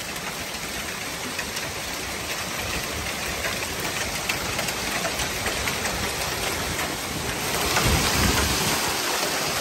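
Hail and heavy rain pelting the lawn and house: a steady hiss scattered with the ticks of hailstones striking. It grows louder about three-quarters of the way in as a wind gust drives the storm, with a low rumble.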